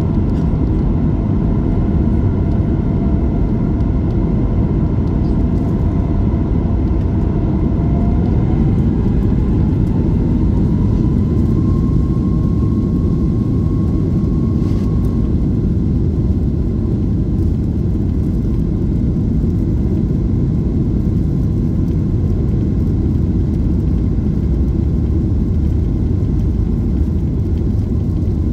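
Cabin noise of a Boeing 737 MAX 8 with CFM LEAP-1B engines, heard from a seat over the wing while the jet rolls on the ground: a steady, loud rumble. An engine tone rises in pitch about a third of the way in as thrust is added, then fades into the rumble.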